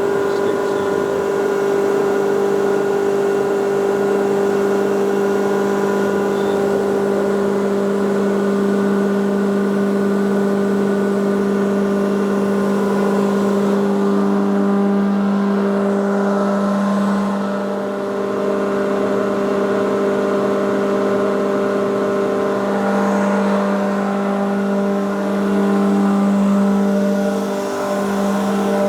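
Eaton 75 HP rotary screw air compressor running under its electric motor: a loud, steady hum with a strong low tone and its overtones, dipping slightly about two-thirds of the way through.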